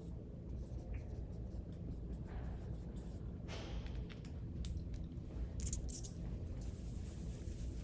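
Dry-erase marker writing on a whiteboard: a few short scratchy strokes, then a few sharp clicks about five to six seconds in, over a steady low room hum.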